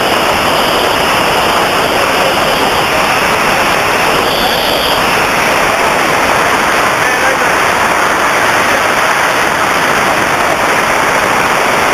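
Steady wind rushing over the microphone as a tandem skydiving pair descend under an open parachute canopy.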